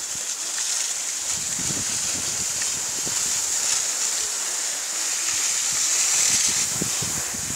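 Steady hiss of skis sliding over groomed snow, with uneven low wind buffeting on the microphone.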